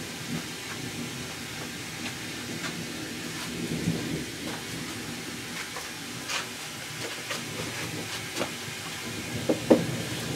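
Summer thunderstorm: steady rain noise under a low rumble of distant thunder that swells about four seconds in. Scattered sharp ticks of drops strike close by, the loudest near the end.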